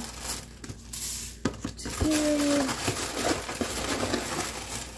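Dry Rice Krispies cereal pouring from its bag into a metal pot, a rustling shower of grains that comes in surges, with the bag crinkling.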